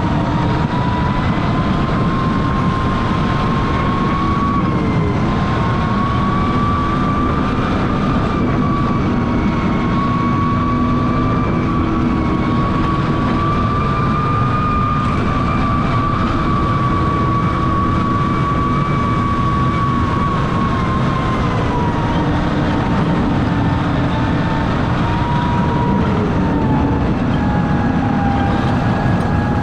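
John Deere 6155R tractor's six-cylinder diesel running steadily while the tractor pushes snow with a front-mounted plow: a dense, even rumble with a high whine that slowly rises and falls in pitch.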